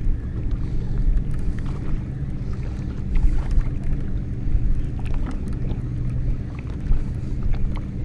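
Steady low rumble aboard a fishing boat in choppy water: wind and waves lapping against the hull, with scattered small knocks and splashes.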